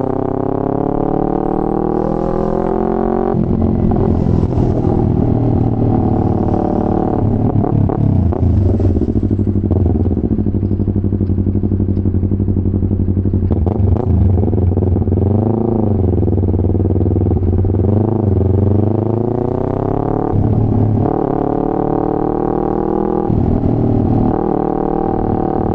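Yamaha R3's parallel-twin engine through an Akrapovic full-system exhaust with a burble tune, revving up and dropping back repeatedly, the pitch falling sharply a few times as the throttle closes or a gear changes. A couple of sharp cracks come through in between.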